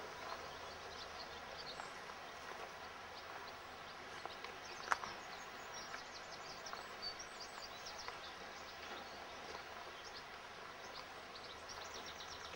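Outdoor ambience: a steady hiss with birds chirping, and one sharp click about five seconds in.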